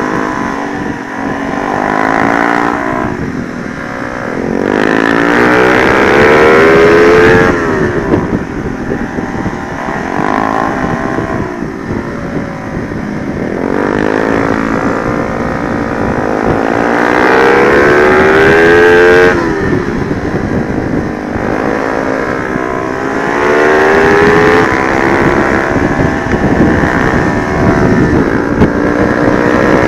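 Honda Sonic 125 motorcycle with a swapped-in 150cc engine, ridden hard on track, with wind noise on the microphone. The engine pitch climbs in three long pulls through the revs and drops sharply at the end of each, at gear changes or when the throttle is shut.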